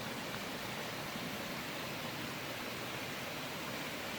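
Steady rushing of water from a waterfall and its creek, an even hiss-like roar with no breaks.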